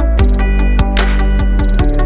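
Background music with a steady beat: a rhythmic backing track with drums and sustained instrument notes.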